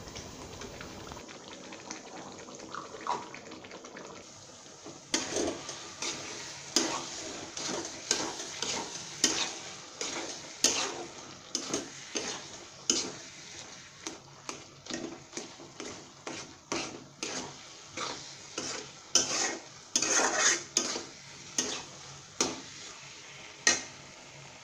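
A metal spatula scraping and knocking against a coated kadai while a spiced mixture fries in oil, with a steady sizzle underneath. The strokes are irregular, roughly one a second, and get louder from about five seconds in.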